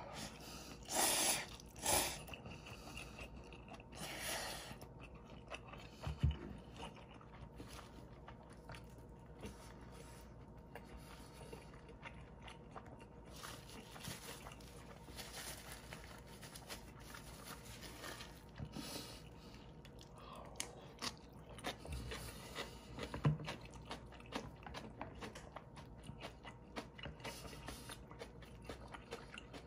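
Close-up eating sounds of instant ramen with dumplings: chewing and small mouth clicks, with a few louder bursts in the first few seconds and occasional knocks of the bowl and utensils.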